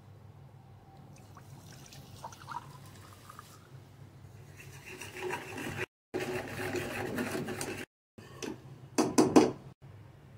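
A whisk stirring cocoa, sugar and water in an aluminium saucepan: liquid sloshing and the whisk scraping the pan, starting about halfway in and broken by two abrupt cuts. A few louder sharp scrapes or knocks of the whisk against the pan come near the end.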